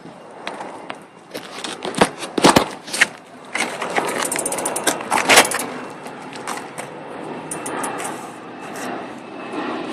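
BMX rear hub ticking as the wheel is spun and left to freewheel: a few separate knocks and clicks at first, then a fast run of fine ratcheting ticks from about three and a half seconds in, fading into fainter rolling with scattered ticks.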